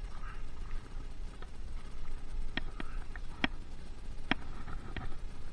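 Handling noise while an angler plays a hooked bass: a handful of sharp, irregular clicks and knocks from the tackle and the body-worn camera, over a low wind rumble on the microphone.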